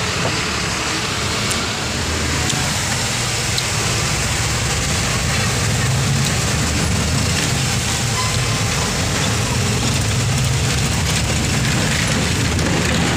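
Truck engine running with a steady hiss of road noise, heard from inside the cab as the truck drives; the low engine hum wavers a little in pitch.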